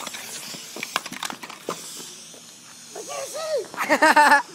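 A smoke firework hissing faintly, with scattered clicks, then loud high-pitched yelling cries near the end.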